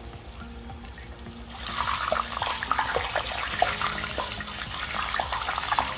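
Battered swai fish fillets deep-frying in hot oil in a cast-iron pot: a dense crackling sizzle that gets sharply louder about a second and a half in and stays up as tongs turn the pieces.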